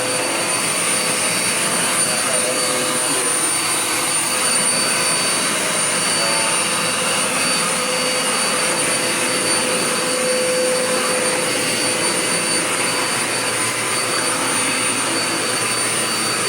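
Dirt Devil Power Max bagless 12-amp vacuum cleaner running steadily with a steady high motor whine as it vacuums up dirt.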